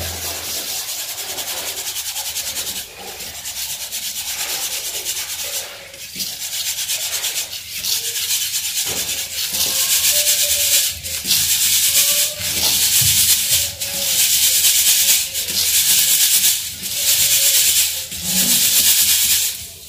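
A round metal hand sieve being shaken to sift ground rice-and-wheat powder through its mesh: a gritty, rattling shush that comes in bouts of a second or two with short pauses, getting louder about halfway through.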